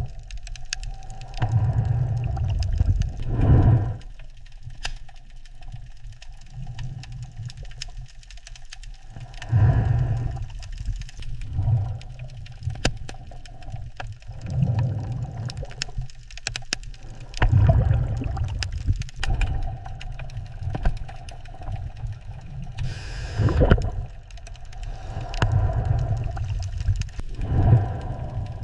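Deep underwater rumbling that swells every two to three seconds, with scattered sharp clicks.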